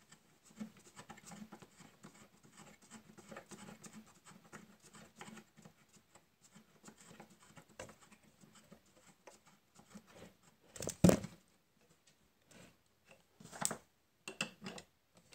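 Faint scratching and rubbing of hand handling on the workbench, then a few sharper knocks and clicks near the end as the wooden clamp on its threaded rod, holding the workpiece, is handled and its nut turned.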